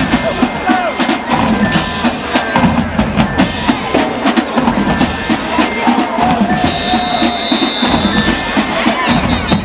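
Marching band percussion section playing a fast drum cadence of dense, rhythmic hits.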